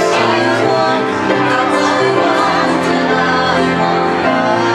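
Music: a group of voices singing in harmony over held low notes.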